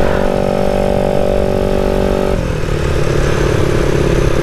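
Yamaha automatic scooter's single-cylinder engine running at steady high revs under throttle, with wind rush on the moving camera. About two and a half seconds in the revs fall sharply to a lower, steady note as the throttle is eased.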